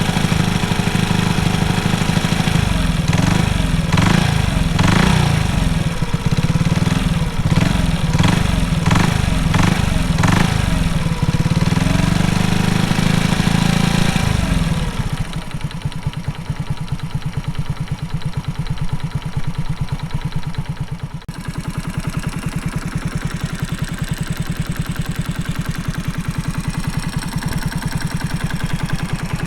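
Honda Super Cub single-cylinder engine, bored up to 88cc, revved up and down several times and then running more quietly at idle from about halfway. Through it runs the metallic knocking noise that the owner is trying to locate and suspects is piston slap.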